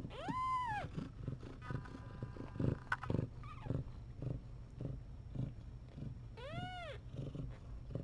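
A young kitten mewing twice, short high cries that rise and fall, one right at the start and one about six and a half seconds in, over the steady, pulsing purr of cats nursing.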